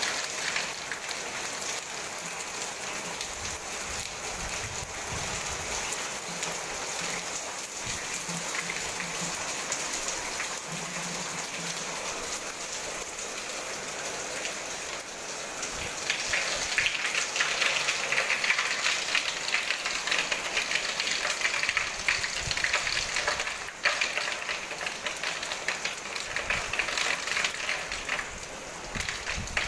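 Hailstorm: hail and rain pelting down in a dense, continuous patter of small impacts. It grows heavier about halfway through.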